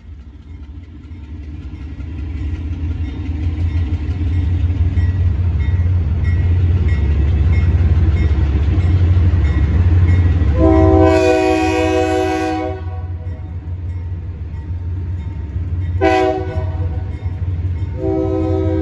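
GE B23-7 diesel locomotive approaching, its engine rumble growing louder, then sounding its chord air horn for a grade crossing: a long blast about eleven seconds in, a short blast about sixteen seconds in, and another blast starting near the end, the standard crossing signal.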